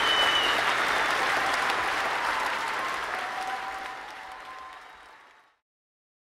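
Crowd applauding, fading out steadily until it stops about five and a half seconds in.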